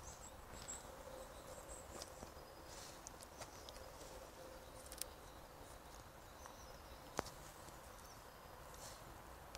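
Quiet forest ambience with faint high-pitched chirping on and off and a few sharp clicks.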